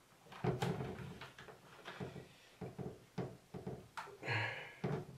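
Scattered small plastic clicks and knocks from hands gripping and tugging at the fittings on a water ionizer's plastic case, trying to pull them out.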